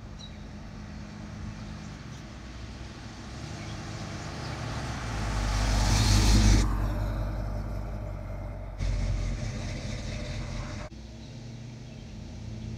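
1970 Chevrolet Chevelle SS 454's V8 engine driving past. It grows louder as the car approaches and is loudest about six seconds in as it passes close, then drops away abruptly and carries on at a lower level.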